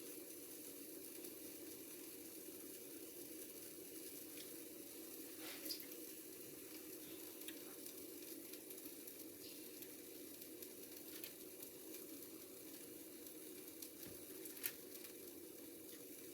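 Faint, steady kitchen hiss with a few soft, light clicks and taps as sticky candy dough is handled and rolled by hand.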